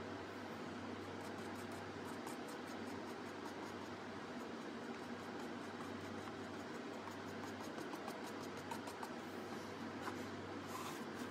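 Steady room noise: a low hum with a background hiss, and faint rapid ticking at times.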